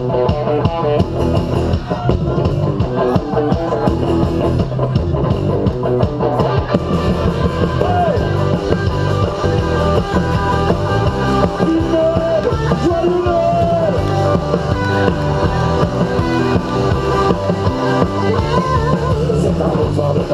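Live rock band playing an upbeat number on electric guitars, bass and drums.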